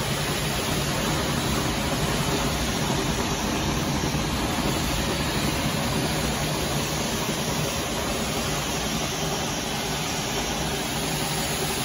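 Tunnel furnace for dye-sublimation mugs running: a steady whirring hiss from its fans and wire-mesh conveyor, with a low hum underneath.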